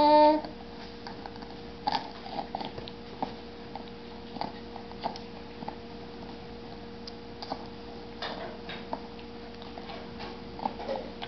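Small, irregular taps and clicks of a baby's fingers on a plastic high-chair tray, over a steady faint hum. A baby's voice is heard briefly at the very start.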